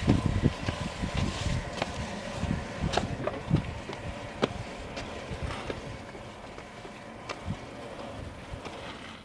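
Wind buffeting the microphone in uneven low rumbles, with scattered sharp clicks and ticks.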